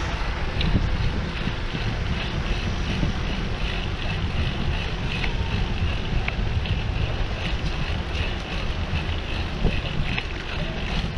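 Wind buffeting the microphone of a camera on a moving bicycle, a steady low rumble, with road and traffic noise underneath.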